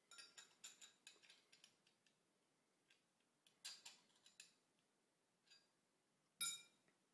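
Faint small metallic clicks and taps of a steel square's edge being laid against a Mauser K98k rifle's floorplate to check it for a bow: a quick cluster in the first two seconds, a few more in the middle, and one sharper click near the end.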